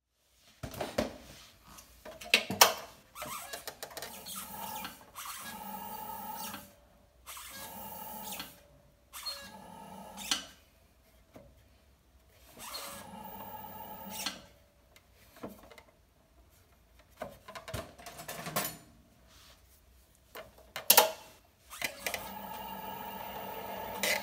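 Potter's wheel spinning while a trimming tool shaves clay from a pot, heard as scraping with a steady machine hum. It comes in separate stretches of a second or two, with a few sharp knocks between them, and runs steadier near the end.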